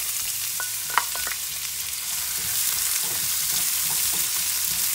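Chopped green beans sizzling as they drop into hot oil in a frying pan, a steady frying hiss. A few sharp clicks of utensils about a second in, then a wooden spatula scraping the pan as the beans are stirred.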